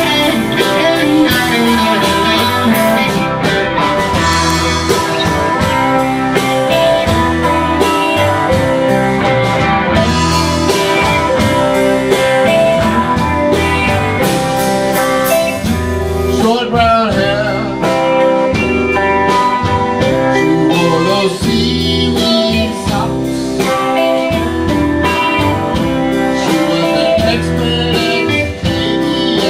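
Live band playing with electric guitars, electric bass and drums, and a man singing lead vocals.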